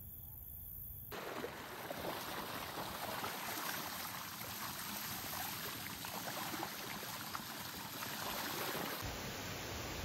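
Water splashing and spraying off an electric bike's front wheel as it rides through a shallow river, starting about a second in with a dense, crackly rush.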